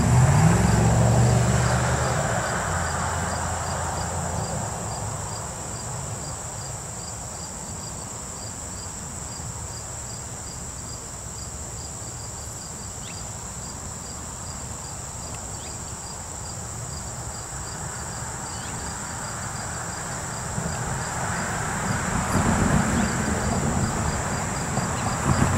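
Diesel locomotive engine running, its pitch rising in the first second or so, then fading as the train moves off, with a louder rumble coming back near the end. Insects chirp steadily throughout in a high, even pulse.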